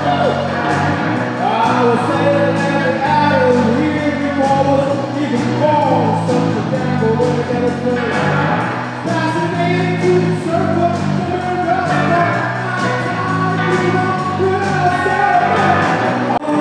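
A live band playing a song: a man singing over electric guitars and drums, with low notes that change about once a second.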